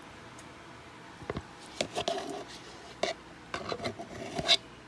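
A spatula scraping thick Greek yogurt out of a plastic tub and tapping against its sides: a run of irregular scrapes and taps starting about a second in, the loudest one near the end.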